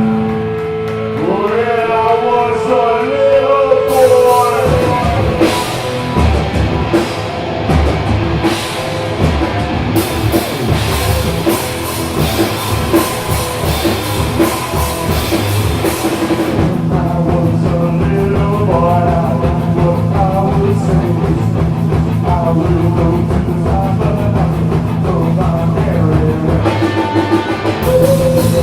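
Rock band playing loud, heavy rock with a drum kit and singing. The bright, crashing top end drops away a little past halfway, leaving a steadier held low note, and comes back near the end.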